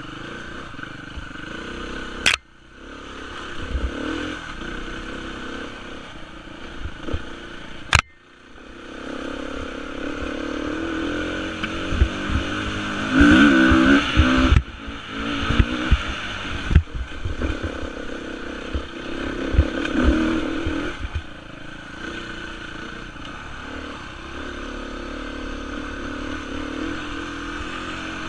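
Beta 350 enduro motorcycle's four-stroke single-cylinder engine being ridden over a rough trail, the throttle opened and closed in bursts of revs, loudest just after the middle, with chassis clatter and knocks from the bumps. Two sharp clicks, about two and eight seconds in, each cut the sound briefly.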